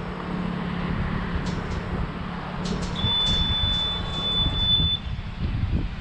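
A few light key-press clicks on a Mighty Mule MMK200 wireless gate keypad, then one steady high beep about two seconds long as the code is entered, over a steady low hum.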